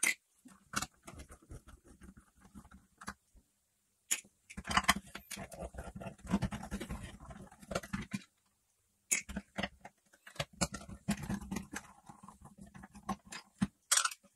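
Hand work on a Dyson cordless stick vacuum's plastic cleaner head as its Torx screws are undone with a T8 screwdriver: scattered sharp clicks and knocks, with longer stretches of scraping and rattling plastic.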